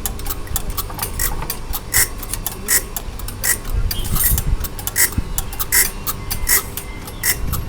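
Regular mechanical ticking, about four sharp clicks every three seconds, over a low rumble that swells briefly about halfway through.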